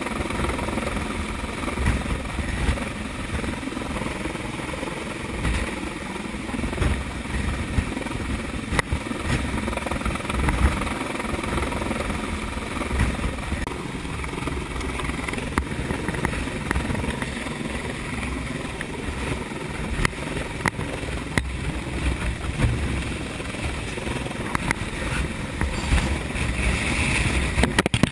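Rescue helicopter hovering close overhead: a steady, loud rotor and engine noise, with the rotor downwash buffeting the microphone.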